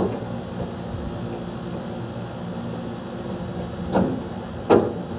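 Two sharp metallic knocks, under a second apart near the end, over a steady low hum: parts and tools handled on a split AC outdoor unit while its fan motor is being removed.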